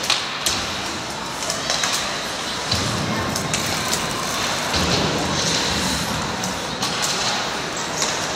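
Ice hockey play on a rink: skates scraping the ice under a steady hiss, with sharp clacks and knocks of sticks and puck scattered throughout.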